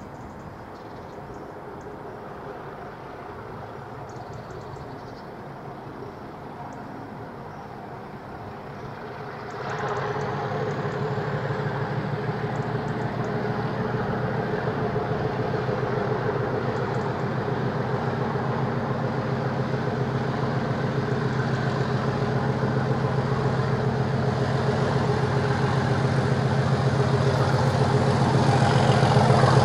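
Class 37 diesel locomotive's English Electric V12 engine running at low power, then opening up suddenly about ten seconds in as the driver applies power to pull away. After that it runs at a steady, much louder note that grows slowly louder toward the end as the locomotive draws nearer.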